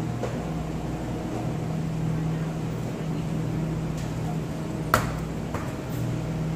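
Steady low hum of supermarket freezer cases. About five seconds in there is a sharp knock, with a lighter one just after, as a glass freezer door swings shut.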